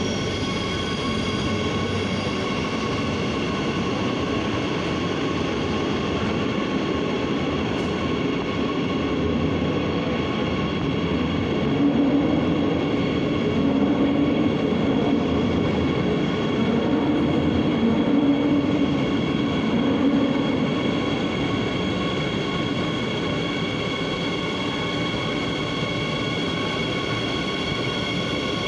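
Madrid Metro train approaching through the tunnel and pulling into an underground platform: a continuous rail rumble with a steady high whine, swelling to its loudest about halfway through.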